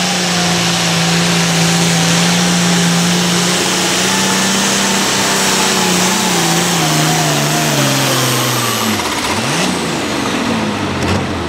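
Turbocharged 466-cubic-inch diesel of an International 1466 pulling tractor running flat out under the sled's load. Its pitch holds steady for the first few seconds, then falls steadily as the load builds and the tractor bogs down. The engine drops off briefly and comes back up near the end as the pull ends.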